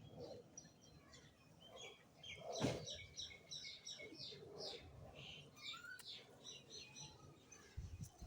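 Small birds chirping, a rapid run of short, high chirps, with one brief louder noise about two and a half seconds in.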